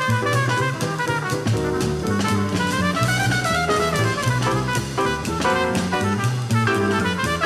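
Background jazz music: a small band with a steady drum beat and a bass line stepping from note to note under a melody.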